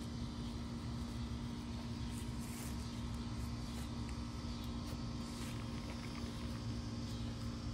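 Steady low rumble with a constant hum, unchanging throughout, with a few faint light ticks over it.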